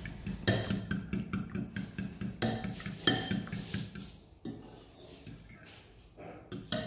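Metal spoon beating eggs in a bowl: quick, irregular clinks of the spoon against the bowl, softer after about four seconds, with one louder clink near the end.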